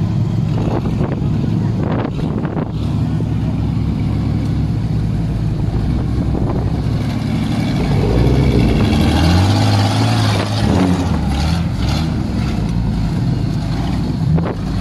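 Off-road 4x4's engine running steadily at low revs. From about eight seconds in it is revved up and down for a few seconds, its pitch rising and falling.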